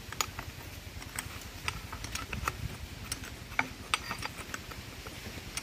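Metal spanners clicking and clinking irregularly against the nuts and bolts of a pipe flange as they are tightened, over a low steady hum.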